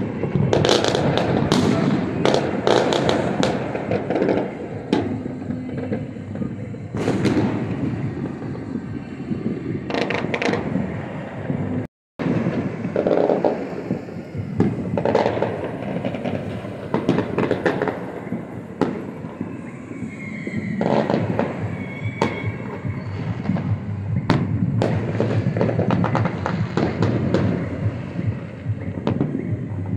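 Many fireworks bursting and crackling across the city, with a dense run of bangs in the first few seconds and scattered bursts after. The sound cuts out briefly about twelve seconds in.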